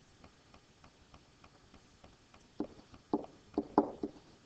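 Stylus knocking and tapping on a writing surface while writing, in a cluster of sharp strokes a little over halfway through. Under it, a faint steady ticking about three times a second.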